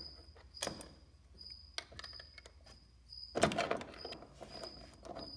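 Bolts being turned by hand with a hex key: scattered light metal clicks and taps of the key and bolts against the step's steel bracket, with a louder cluster of knocks about three and a half seconds in.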